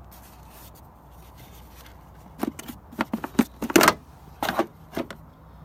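Car fuse box being opened and handled: a quick run of sharp plastic clicks and rattles, starting a couple of seconds in and lasting about three seconds.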